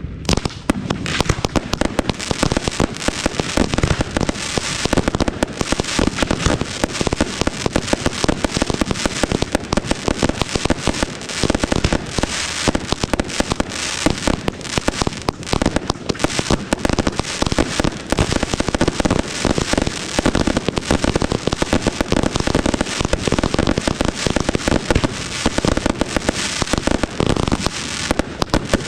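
Professional aerial fireworks display: a dense, unbroken barrage of rapid shell bursts and crackling.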